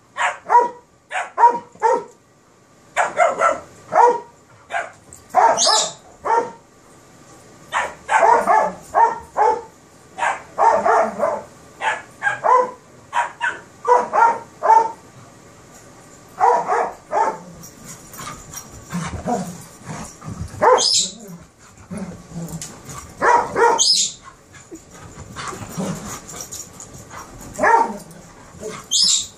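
Terrier barking over and over in play, in quick runs of several short barks with brief pauses between them.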